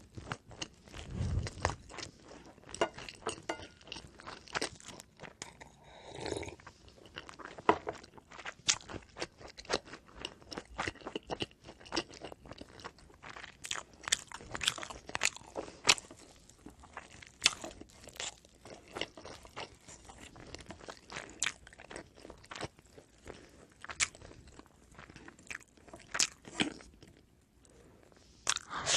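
Close-up chewing and crunching of oven-baked pizza bread: a steady run of sharp, irregular crunches as the crust is bitten and chewed.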